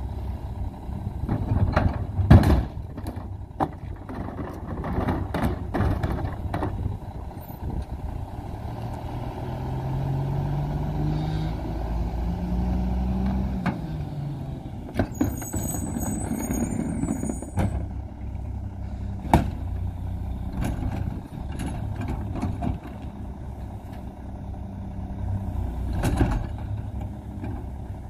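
Mack LE McNeilus rear-loader garbage truck's diesel engine running, with loud metal clanks in the first few seconds as a cart is dumped into the rear hopper. The engine then rises in pitch as the truck pulls away and drives forward, a short high squeal comes as it stops, and a few more knocks follow near the end.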